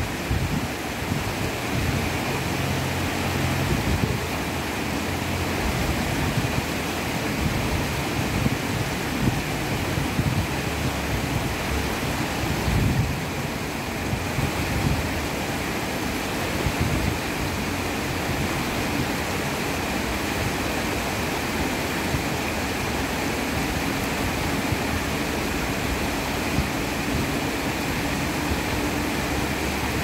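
Rain-swollen stream rushing over rocks and a low stepped weir: a steady roar of white water, with the uneven low rumble of wind buffeting the microphone.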